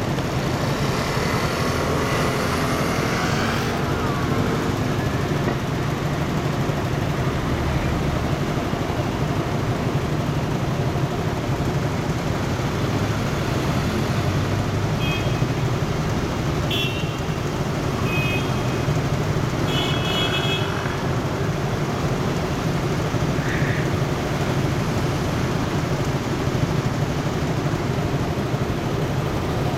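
Street traffic heard from a moving motorcycle: a steady low engine hum with road and wind noise. A few short high tones sound around the middle.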